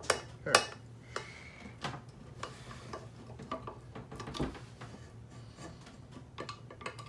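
Screwdriver turning the handle screw of a nonstick frying pan, with irregular metal clicks and light knocks of tool and pan, loudest in the first second, and a short squeak about a second in.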